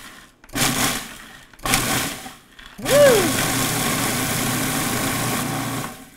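Breville Sous Chef food processor pulsing graham crackers into crumbs: two short bursts of the motor and blade about a second apart, then a longer run of about three seconds from midway.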